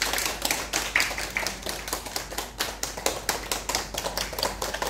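A small group of people clapping their hands, quick irregular claps overlapping one another.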